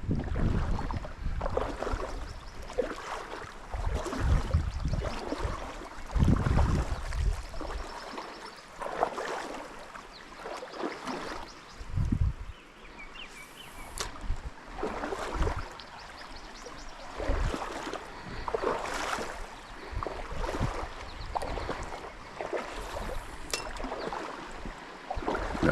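Trout stream water running, with irregular surges of swishing and splashing. There are heavier low rumbles in the first third and a couple of sharp clicks.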